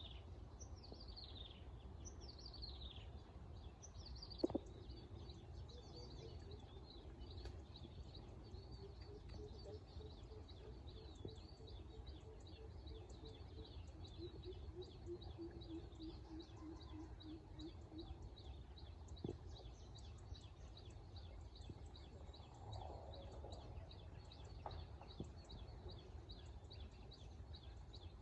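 Birds chirping: a few high chirps that sweep downward, then a long, fast trill of high repeated notes. A lower series of repeated notes comes in the middle. A steady low rumble runs underneath, and there is one brief knock about four seconds in.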